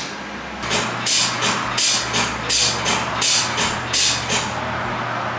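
A quick series of about eight short hissing bursts, roughly two a second, over a steady low hum; they stop about a second before the end.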